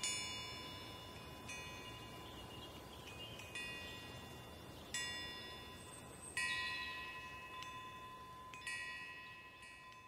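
Chimes ringing: clusters of bright metal tones struck about six times, each ringing on and fading, over a faint steady high tone.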